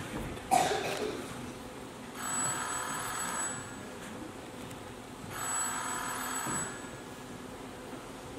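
Telephone ringing: two rings of about a second and a half each, about three seconds apart. A sharp thump about half a second in is the loudest sound.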